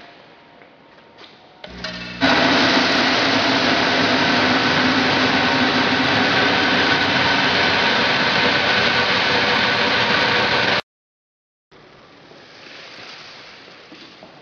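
SAMSUNG ENG grain color sorter running: a loud, dense, steady rush of noise with faint steady hums. It comes in about two seconds in, cuts off abruptly about three-quarters of the way through, and gives way to a quieter hiss.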